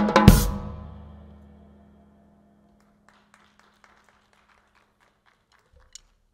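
Drum kit solo ending on a final hit with a crash cymbal, the cymbals and drums ringing out and fading away over about two seconds. Faint clapping follows, a few claps a second.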